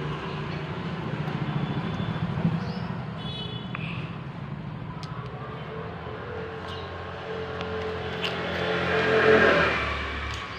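A motor vehicle engine running nearby, swelling loudest about nine seconds in, with a brief high beep about three seconds in and a few faint clicks.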